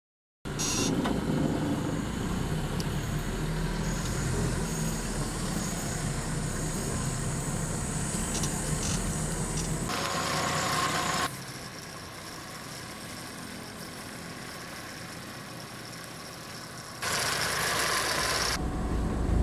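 A Nissan pickup truck's engine comes on suddenly about half a second in and runs steadily at idle. It drops quieter about eleven seconds in, with short bursts of hiss-like noise just before that and again near the end.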